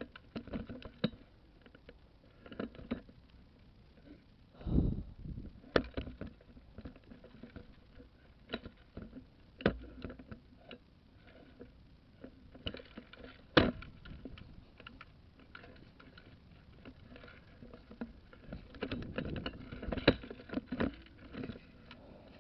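Irregular rustling, knocks and sharp clicks of movement and handled gear, with a few louder snaps, the sharpest about 13 seconds in.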